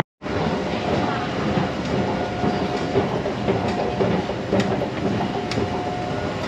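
Hong Kong MTR metro train at a station platform: a steady rumble with a faint hum over it and a few sharp clicks.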